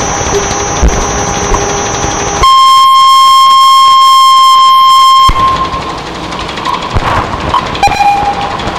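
Experimental electronic noise music: a dense, hissing noise drone with faint steady tones, broken about two and a half seconds in by a very loud, steady high-pitched tone that cuts off abruptly about three seconds later, after which the noisy drone returns.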